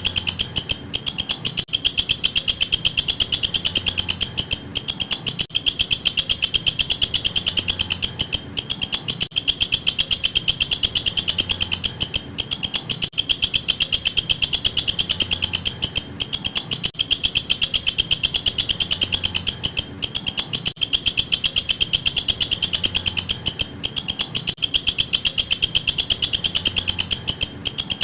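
Walang kecek insect calling: a loud, high-pitched, very fast run of clicks that merge into a continuous shrill chirr, broken by brief pauses every few seconds.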